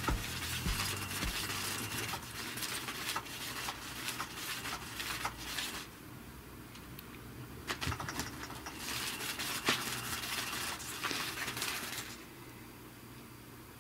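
Catch Me If You Can 2 electric cat toy running: its motor whirs and the wand scrapes and ticks around under the fabric cover. It runs in two stretches, pausing about six seconds in and stopping about twelve seconds in.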